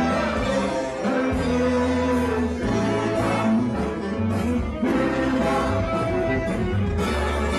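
A live rock band playing, with the electric bass holding long low notes under sustained melody lines.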